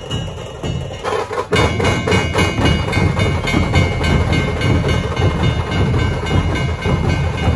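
Dhol-tasha troupe drumming: many large dhol barrel drums and sharp tasha drums beating a fast, dense rhythm. It grows louder and fuller about a second in.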